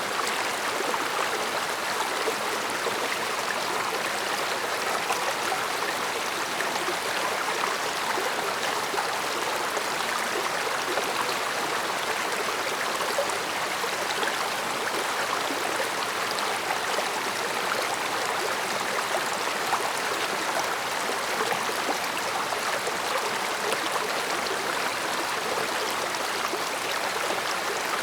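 A mountain stream flowing over rocks: a steady rush of running water with small gurgles and trickles.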